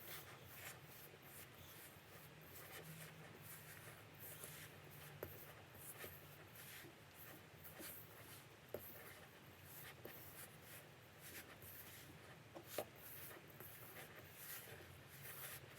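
Roti dough of flour, oil, salt and water being mixed and worked in a bowl: soft, irregular scraping and squishing strokes as more water is worked in, over a faint steady hum.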